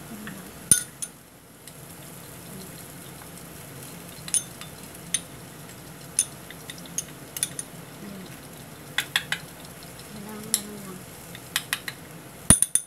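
Egg-and-anchovy patties frying in oil in a pan with a steady sizzle. A utensil clinks against a ceramic bowl in irregular sharp taps, with a quick cluster of louder clinks near the end.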